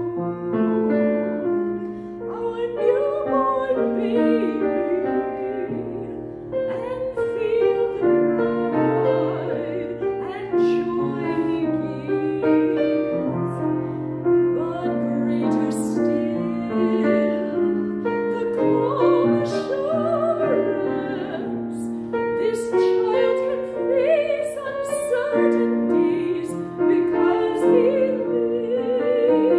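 A woman singing a sacred solo in a classical style with vibrato, accompanied by piano.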